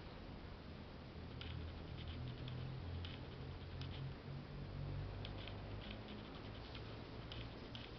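Cat licking fur while grooming: faint, irregular soft clicks of the tongue on fur, over a low background hum.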